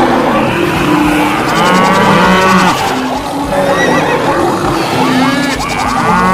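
Many cattle mooing over one another, with other animal calls mixed in, in a continuous layered chorus.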